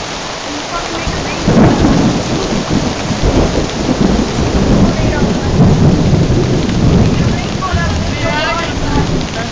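Heavy downpour of rain. A long roll of thunder starts about a second and a half in and rumbles for several seconds before fading.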